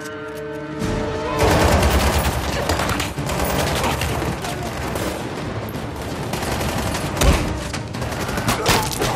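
Sustained automatic gunfire in dense, rapid volleys, starting about a second in, with a few single shots standing out louder near the end. A film score runs underneath.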